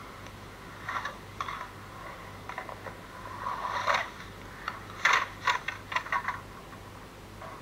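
Skateboard wheels rolling and scraping on the concrete of an empty pool, building to a fall about four seconds in, followed by the board clattering on the concrete in a quick run of sharp knocks. A steady low hum sits underneath.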